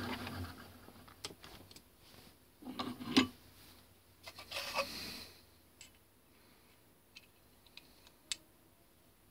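Metal lathe motor running down, then steel parts handled at the lathe as a gear cutter is test-fitted on the turned arbor: scattered clinks and knocks, the loudest about three seconds in, a short metallic scrape near five seconds, and a few faint ticks later.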